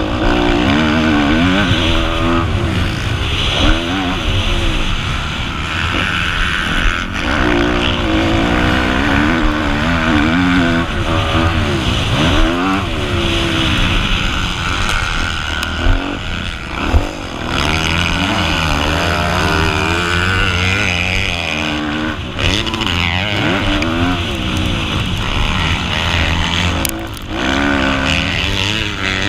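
Kawasaki KX250F four-stroke single-cylinder motocross engine, heard from on board, revving up and dropping back again and again as the bike is ridden through a dirt track's straights and corners, with brief throttle cuts.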